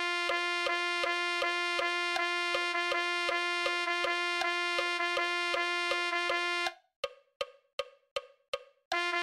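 Notation-software playback of a rhythm exercise: one sustained pitch, the note G, played in 6/8 at 160 eighth notes a minute, over a metronome click on every eighth note. About two-thirds of the way through, the tone stops for a bar's rest and only the metronome clicks go on, and the tone comes back right at the end.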